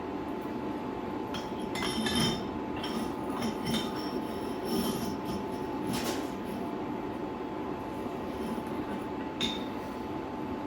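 Light metallic clinks and taps, about a dozen, scattered irregularly over a steady mechanical hum.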